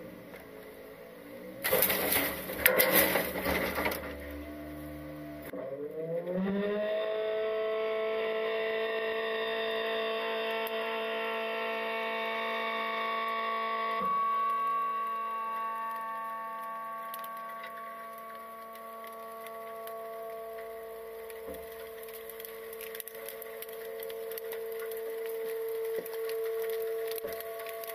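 Trash bags thump and rustle into a small side-loader garbage truck's body for a couple of seconds. Then the truck's hydraulic pump comes on with a whine that rises in pitch and holds steady as the packer compacts the load.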